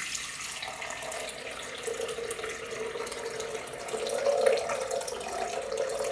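Water pouring in a steady stream from a pitcher into the empty square plastic jar of a Blendtec blender.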